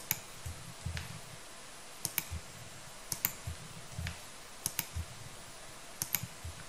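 Computer mouse clicking while selecting in 3D software: pairs of sharp clicks about once a second, with soft low knocks between them.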